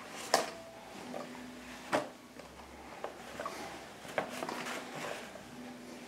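Light handling noise from a toddler's cloth bag and the things being packed into it: rustling, with three sharp knocks about two seconds apart.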